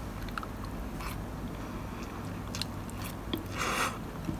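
A person eating instant yakisoba noodles with wooden chopsticks: soft chewing with a few light clicks, and a short hiss near the end.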